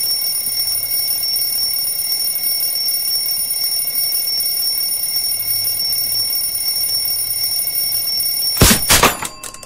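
An alarm ringing continuously at a steady high pitch, cut off by a few sharp knocks near the end.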